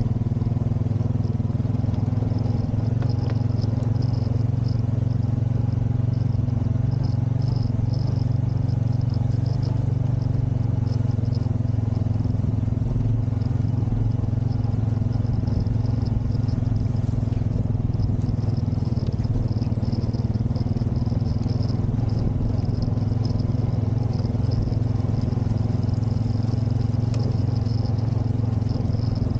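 Single-cylinder engine of a Honda Rancher ATV running steadily as the quad is ridden along, a constant drone that neither revs up nor dies down.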